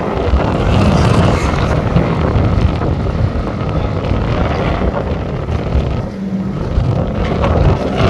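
Engines of small racing motorcycles lapping a track, heard at a distance under a heavy rumble of wind buffeting the microphone.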